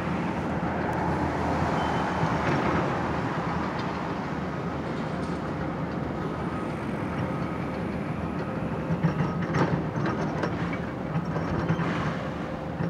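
Demolition excavator at work: its diesel engine runs steadily, with scattered cracks and crunches of breaking building material, most of them about nine to ten seconds in and again near the end.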